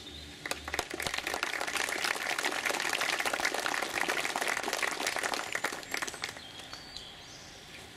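Crowd applauding: dense clapping starts about half a second in, holds, and dies away after about six seconds.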